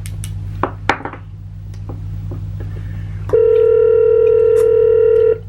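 Telephone ringback tone as an outgoing call rings: the gap between rings, with a few faint clicks, then one steady ring tone lasting about two seconds, starting a little past halfway, over a low constant hum.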